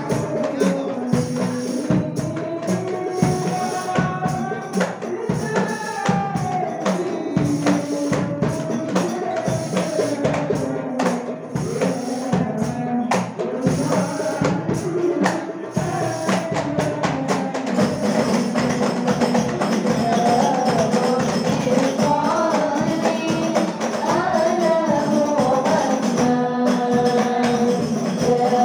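Hadroh ensemble performing sholawat: voices singing a melody over rebana frame drums beating a fast, steady rhythm. A little past halfway the singing grows louder and fuller.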